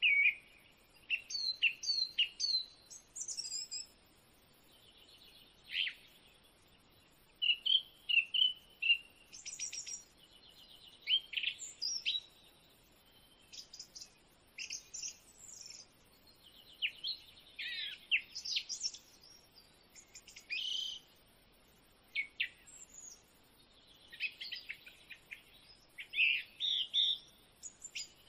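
Small birds chirping with short, varied calls and quick sweeping notes, coming in clusters on and off.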